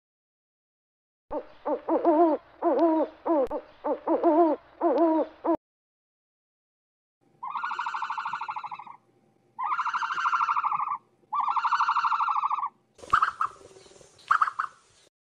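Owl calls: a quick run of about eight short hoots that waver in pitch, then three long buzzy, trilling calls, followed by a short scratchy burst near the end.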